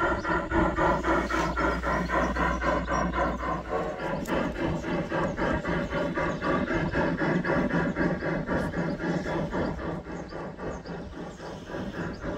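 Large-scale Bachmann K-27 model steam locomotive and its freight cars rolling along garden track, a fast, steady rhythmic clatter.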